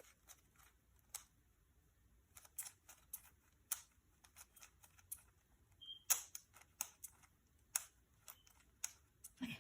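Faint, irregular plastic clicks and taps from a 3x3 speed cube being handled.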